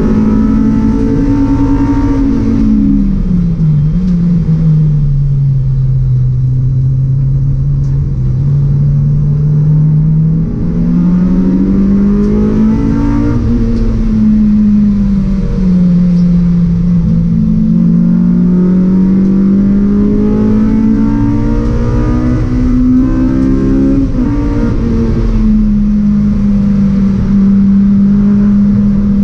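Honda Civic Type R EP3 race car's 2.0-litre four-cylinder engine, loud inside the stripped cabin, running hard through the gears at racing speed. Its note climbs slowly and drops several times, sharply about 3, 14 and 24 seconds in.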